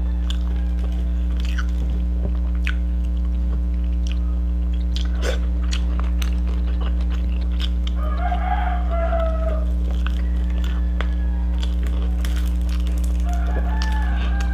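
A steady low hum underlies everything, with soft clicks and smacks of eating by hand: fingers picking at fried fish and rice, and chewing. Twice an animal calls in the background, once about eight seconds in for a second or so and again near the end.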